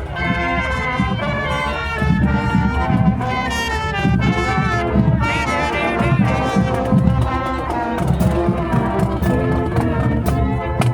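A parade marching band playing brass music, loud and continuous.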